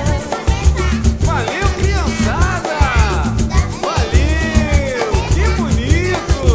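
Dance music with a pulsing bass beat, dense fast percussion, and a lead line of sliding, swooping notes.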